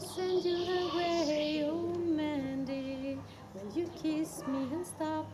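A woman singing a slow melody, with long held notes in the first half and shorter notes after.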